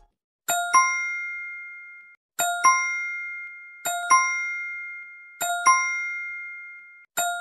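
Editing sound effect: a bright, bell-like ding repeated five times, about every one and a half seconds. Each is a quick double strike that rings on and fades away.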